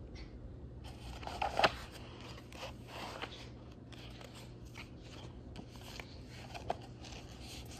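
Paperback picture book's pages being flipped and handled: soft, irregular paper rustling with one sharper crisp snap about a second and a half in.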